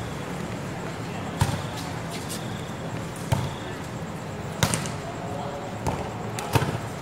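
Volleyball being struck back and forth in a rally: five sharp slaps of hands on the ball, a second or two apart, over a steady hum of court noise.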